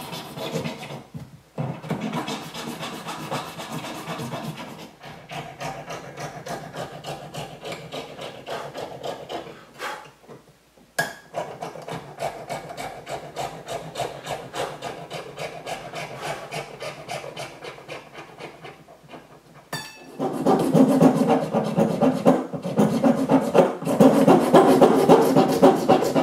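Hand files and a jeweller's saw cutting a ring of green carving wax: fast, even rasping strokes with a few short pauses, the filing louder from about twenty seconds in.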